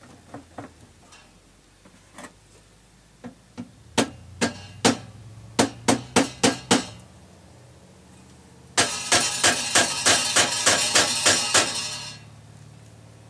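Hammer blows on a stuck metal part inside a jukebox mechanism. It starts with a few light taps, then comes a handful of hard strikes and a quick run of six. Near the end is a faster steady run of about three blows a second over a continuous rattle, as the part is knocked loose.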